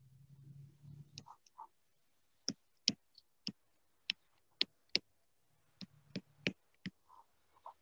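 Stylus tapping a drawing tablet as lines of a circuit diagram are put down: about a dozen faint, sharp clicks at irregular intervals.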